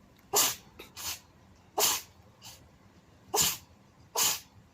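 A cat sneezing over and over in a fit: short, sharp sneezes about one a second, with a few smaller ones in between.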